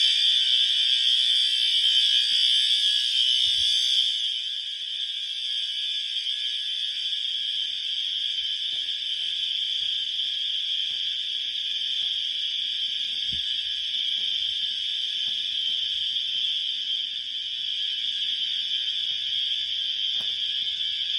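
System Sensor HRA fire alarm horns sounding during an inspection test: a steady, high, harsh blare with no breaks, louder for the first four seconds and then a little lower.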